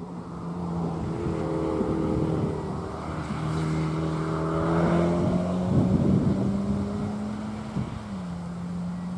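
Saloon race car's engine at speed as the car comes through a corner and passes. It grows louder to a peak about six seconds in, and its note drops in a step near the end.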